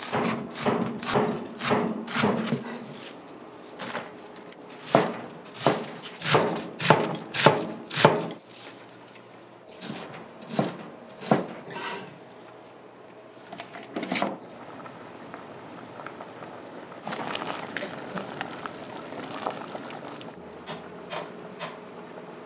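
Large square-bladed kitchen knife chopping cabbage on a plastic cutting board: a run of sharp knocks, about two a second, for the first eight seconds, then a few scattered strikes.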